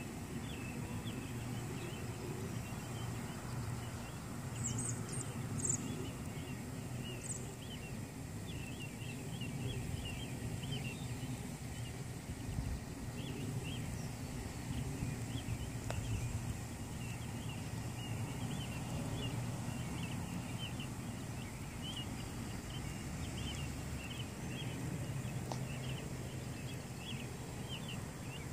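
Outdoor evening ambience: a steady low rumble with many short high chirps scattered throughout, and a few higher chirps about five seconds in.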